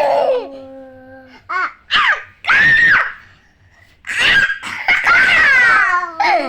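A young child laughing and vocalising between lines of a song: a held sung note trails off, then short loud bursts of laughter, and a longer loud stretch of laughing voice from about two-thirds of the way in.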